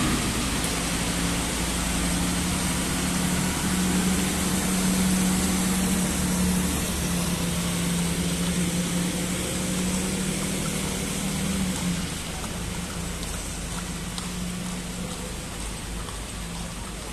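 Military vehicle engine running with a steady hum as it goes past, which drops away about twelve seconds in.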